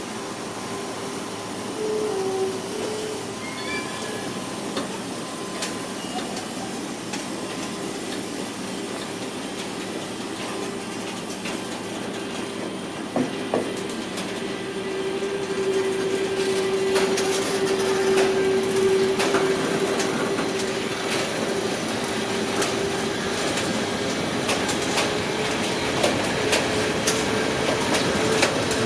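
SBB Cargo freight train rolling through the station, its wheels clicking over rail joints and points more and more often as it gets louder from about halfway through, with a steady whine underneath.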